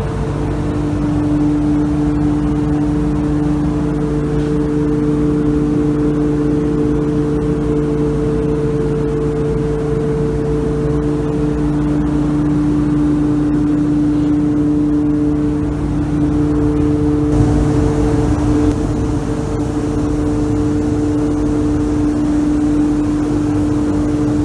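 Paint booth ventilation fan running: a steady hum with two constant tones over a low rumble.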